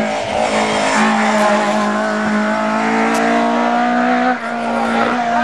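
Sprint car's engine running hard at high revs with a loud, nearly steady note as the car drives the hill-climb course. The sound dips briefly about four seconds in, then carries on.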